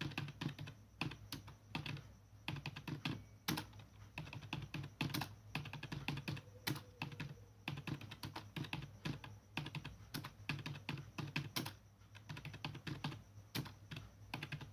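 Computer keyboard being typed on at a brisk, uneven pace of several keystrokes a second, with a brief pause near the end: a touch-typing drill being worked through.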